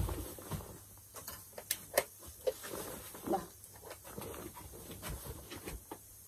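Faint scattered clicks and small knocks with soft rustling: people moving and handling small objects close to a phone microphone.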